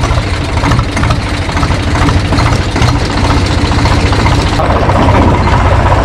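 Diesel tractor engine running steadily with a low throb as the tractor drives along in gear. It grows a little louder near the end.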